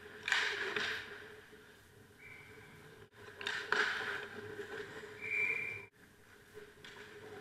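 Ice hockey skate blades scraping and cutting on rink ice in two loud bursts, over a steady hum. Two short high-pitched tones are heard, about two seconds and five seconds in.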